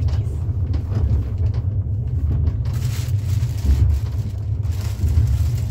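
Steady deep rumble of a moving vehicle heard from inside, with no speech over it.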